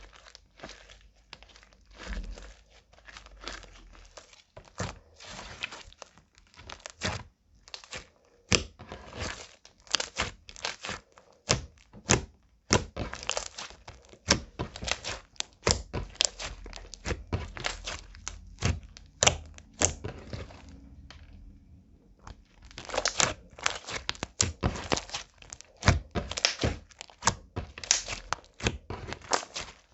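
Slime being kneaded and squeezed by hand, giving a fast, irregular run of sticky clicks and snaps, with a pause of about two seconds a little past two-thirds of the way through.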